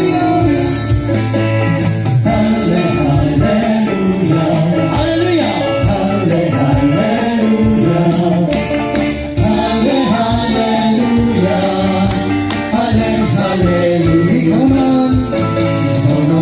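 A worship song sung over a live band's guitar-led accompaniment, the singing continuous over a steady beat.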